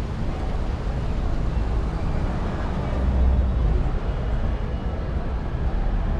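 City street ambience while walking: car traffic passing and people's voices in the background, over a steady low rumble that swells about halfway through.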